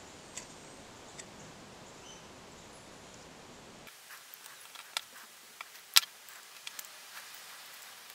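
Pliers working the bent-over tabs of a small sheet-metal engine valve cover: after a faint steady hiss, a string of sharp metal clicks and ticks sets in about four seconds in, the loudest two about five and six seconds in.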